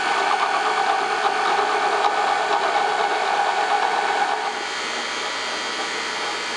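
Electric drill motor running steadily while drilling holes in metal. It gets somewhat quieter about four and a half seconds in.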